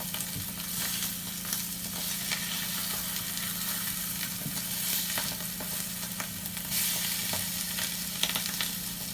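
Egg whites with chicken and fried rice sizzling in a frying pan: a steady hiss with scattered crackles and pops.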